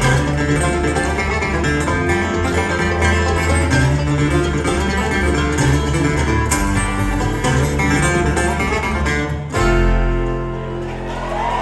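Live bluegrass band with acoustic guitar, upright bass and banjo playing a quick tune, which stops on a held final chord about nine and a half seconds in. As the chord fades, a whoop rises from the crowd near the end.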